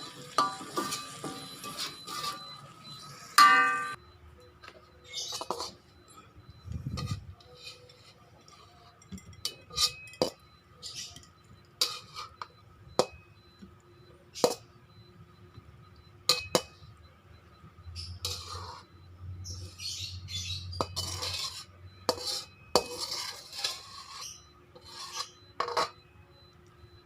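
Metal utensil clinking and scraping against cookware, an irregular series of sharp clinks with one louder ringing clank near the start and a stretch of scraping in the second half.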